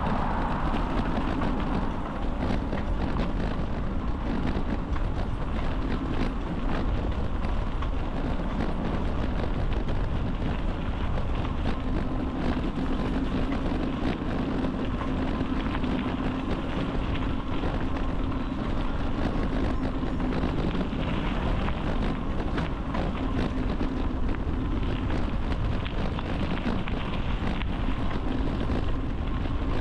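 Wind buffeting the microphone of a moving bicycle, mixed with tyres rolling on the trail and many small clicks and rattles. A low hum is stronger through the middle stretch.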